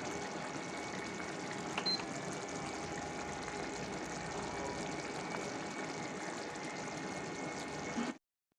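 Faint steady watery hiss of liquid, like water running or food simmering, cutting off suddenly about 8 seconds in.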